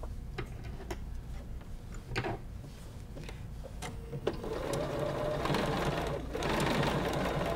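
Domestic sewing machine doing slow straight-stitch sewing through appliquéd fabric and batting. A few light clicks of handling come first; the machine starts stitching about four and a half seconds in, with a brief pause near the end.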